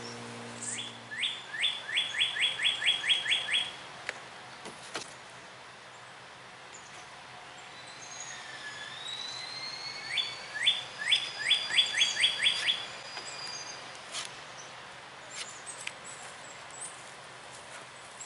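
A songbird singing two phrases, each a quick run of about ten sharp, repeated chirps lasting a few seconds, one near the start and one about ten seconds in. Fainter, higher bird calls and a thin whistle sound between them.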